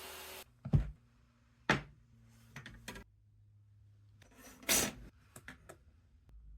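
Wood and tools being handled on a workbench: a few sharp knocks and clacks, with a short scrape a little before the five-second mark. A steady hiss cuts off just after the start.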